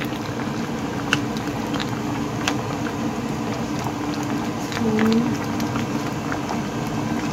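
Spicy crab and clam stew bubbling in a pan on the stove, with scattered sharp pops and clicks over a steady low hum.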